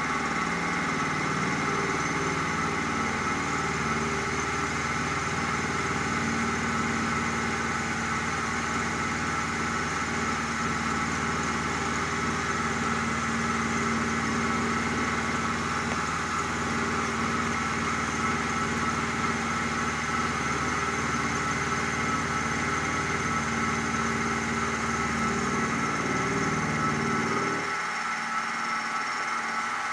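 Sieg SX2P mini mill running steadily with a 10 mm end mill cutting an arc into a metal block, a constant high whine over a lower, rougher hum from the cut. The lower hum drops away near the end, leaving only the whine of the spindle.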